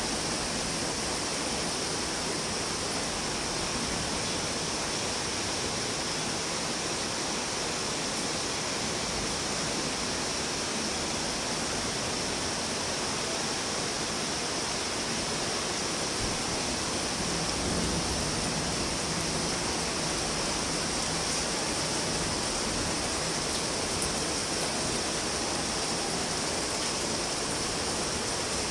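Steady rain falling, an even continuous hiss that does not let up.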